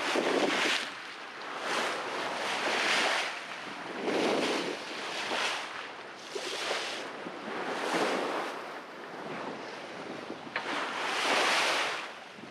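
Sea water rushing and splashing along the bow of a sailboat under way, with wind buffeting the microphone. The wash swells and eases in surges about every second or so.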